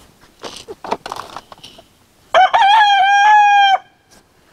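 Rooster crowing once, about two seconds in: a short rising start followed by a long note held on one pitch, lasting about a second and a half.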